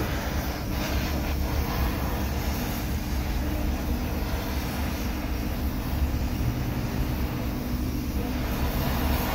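MIG welder arc crackling steadily as a bead is laid on a metal frame, over a steady low hum.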